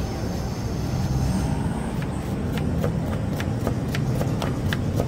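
Kitchen knife chopping sliced red onion on a wooden board: quick, sharp taps at about three to four a second, starting about two seconds in. Steady low rumble of road traffic underneath.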